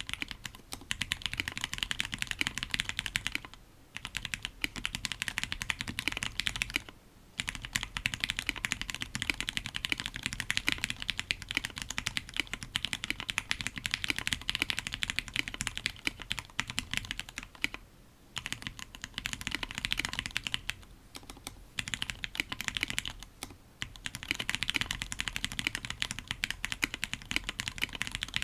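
Continuous fast typing on an Octagon V3 custom mechanical keyboard with an FR4 plate and Tealios V2 linear switches lubed with Krytox 205g0. It is a dense run of key clacks broken by a few short pauses.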